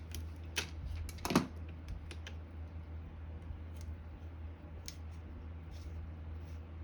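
Small clicks and knocks of motor parts and tools being handled, clustered in the first couple of seconds with the loudest knock about a second and a half in, then occasional light ticks, over a steady low hum.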